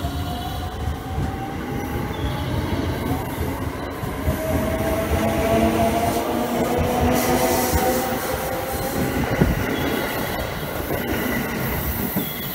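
Limited express electric train (Shirasagi) pulling out of the station. Its motor whine climbs slowly in pitch as it gathers speed, over a steady rumble of wheels on rail.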